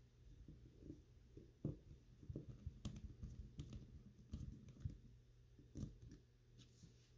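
Faint, irregular small clicks and scrapes of a screwdriver blade in the extractor screw as it is turned into the steel bolt head of a Lee-Enfield SMLE Mk III* rifle.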